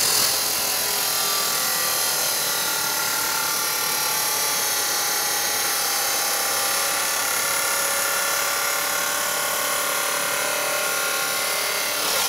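Makita electric chop saw with a 14-inch diamond blade cutting through 3/16-inch tool steel: a loud, steady grinding whine of the blade in the metal.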